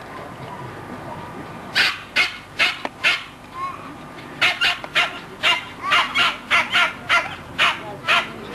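Plummer terrier barking in short, sharp yaps: four starting about two seconds in, then after a brief pause a quicker run of about three a second.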